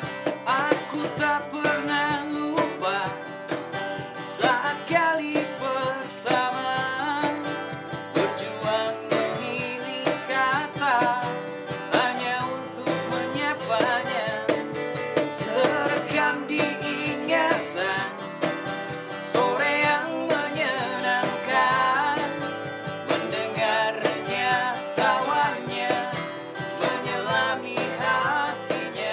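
Live acoustic band playing: two acoustic guitars strummed, a cajón played by hand, and a male lead voice singing over them.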